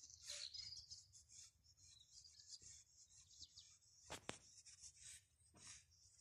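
Near silence: faint outdoor ambience with a few soft high ticks and chirps, and one sharper click about four seconds in.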